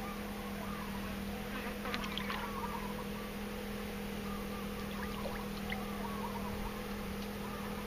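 A steady machine hum holding one pitch, with a fainter steady tone above it. Faint short chirps come and go over it, with a few sharp clicks about two seconds in.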